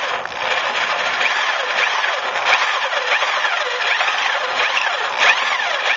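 Cordless drill drilling out the rivet that holds a pickup's tailgate strap, the bit grinding steadily through the rivet head to free the old strap.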